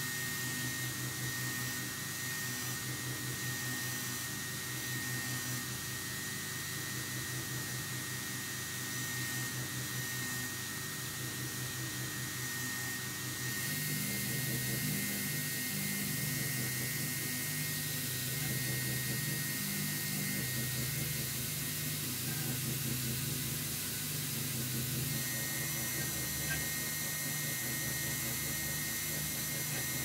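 Belt grinder running steadily, grinding the bevel of a knife blade held in a jig against the moving abrasive belt; the sound shifts slightly about halfway through.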